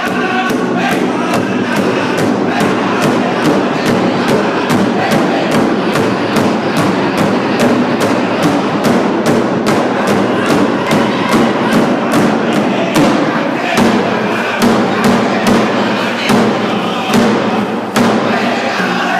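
A powwow-style drum group: a big drum struck in a steady beat, about two to three strikes a second, with several voices singing together over it.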